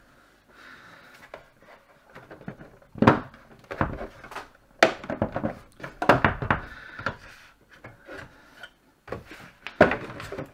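Irregular knocks and clunks from the plastic case of a Cricut Maker 3 cutting machine as hands press on and shift its lid and front panels. The sharpest knocks come about three seconds in, around five and six seconds, and near the end.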